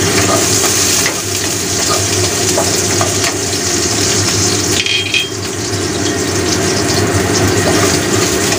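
Sliced garlic frying in hot oil in a stainless steel wok: a steady sizzle.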